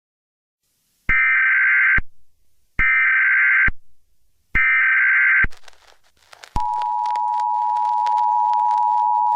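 Emergency Alert System tones: three bursts of the SAME data header, a warbling digital screech just under a second long each and about a second apart. About six and a half seconds in, the EAS attention signal starts, a steady harsh two-note tone, with faint static clicks over it.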